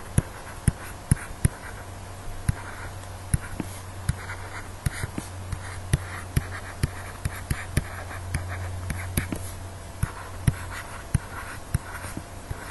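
Pen stylus tapping and scratching on a tablet surface during handwriting, many small irregular clicks, over a steady low hum.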